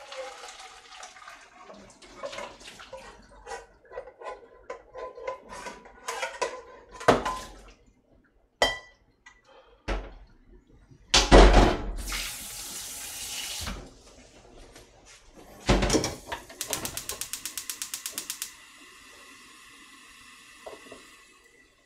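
Kitchen work: pots and utensils knocking and clattering. About halfway through a tap runs hard for a few seconds. Then there is a rapid, even run of clicks for about two seconds, followed by a faint steady hiss.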